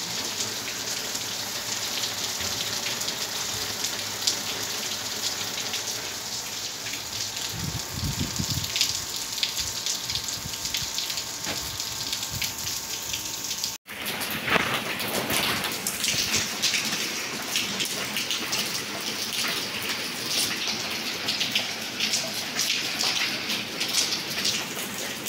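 Heavy rain falling on clay-tiled roofs: a dense, steady hiss of rain. About halfway through the sound cuts out for an instant and picks up again, with more sharp individual splashes.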